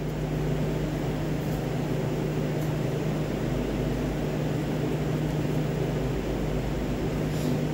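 Steady machine hum: a constant low drone over an even whoosh of air noise, unchanging in level.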